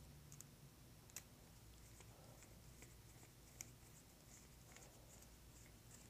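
Near silence with faint metallic clicks and scrapes of a small screwdriver turning the collar screws on a Cannon XLR connector's metal shell, a few separate ticks over a low steady hum.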